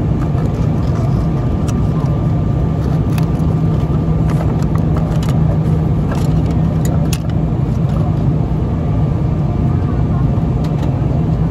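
Steady drone of airliner cabin noise from the engines and airflow, with a few faint crinkles from a foil snack wrapper being handled.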